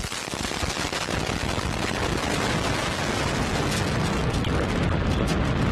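Antares 230+ rocket's two RD-181 first-stage engines at liftoff: a loud, steady crackling rumble.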